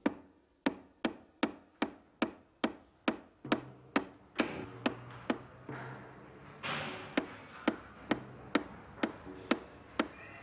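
Sharp, evenly spaced knocks, a little over two a second, from a long pole rapped against the ceiling. A low hum comes and goes under the knocks, and a brief rushing noise swells twice midway.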